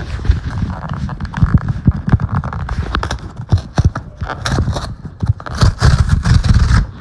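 A cardboard mailer box being torn open along its tear strip by hand, with crackling rips and knocks and rubbing from handling close to the microphone. A longer, denser rip comes near the end.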